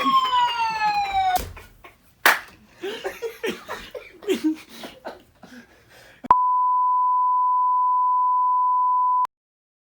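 A falling whistle tone that slides down steadily and stops about a second and a half in, a sharp thud shortly after, then a few faint knocks and rustles. Past the middle a steady, flat electronic beep at about 1 kHz sounds for about three seconds and cuts off suddenly.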